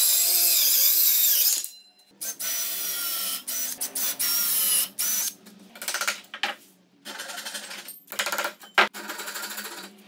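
Circular saw cutting through a wood slab, its whine wavering in pitch under load for the first second and a half, then a run of shorter power-tool bursts broken by brief pauses.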